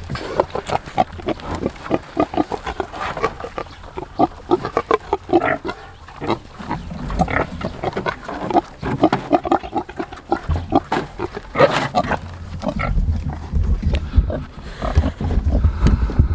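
A group of pigs grunting in a dense, irregular run of short calls while crowding and jostling to feed at a trough.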